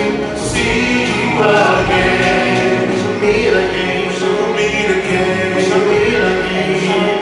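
Music with a choir singing, continuous throughout.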